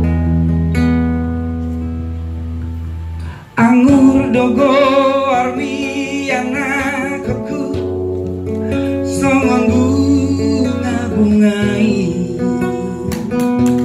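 Live song: acoustic guitar accompaniment plays alone for about three and a half seconds, then a man's amplified singing voice comes in over it, with a strong vibrato on held notes.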